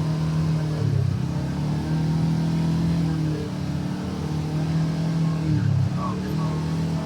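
UTV engine running under way on an off-road trail, a steady drone that briefly dips and changes pitch about a second in and again near the end.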